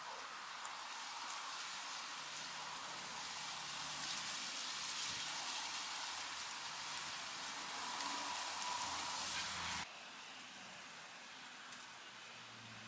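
Guinea pigs munching a pile of freshly pulled green weeds: a steady, fine crisp crackle of many small chews and leaves rustling, which drops suddenly quieter about ten seconds in.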